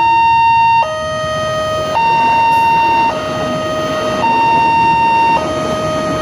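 Railway level-crossing warning alarm sounding at the barrier gate: an electronic two-tone signal that alternates steadily between a high and a low tone, each held a little over a second. It signals that a train is approaching and the crossing is closing.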